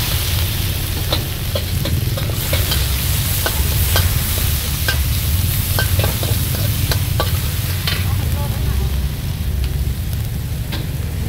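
Meat stir-frying in a wok: oil sizzling while a metal ladle and spatula scrape and clink against the pan again and again, over a steady low rumble.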